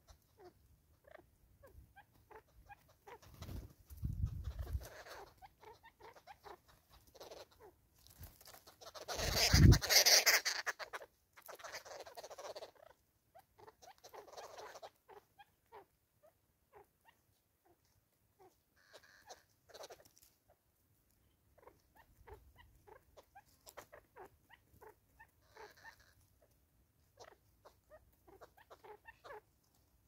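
Natal spurfowl pecking seed off a wooden tree stump: a scatter of small sharp taps and clicks. Two louder rustling bursts with a low thump, one about four seconds in and a stronger one around ten seconds.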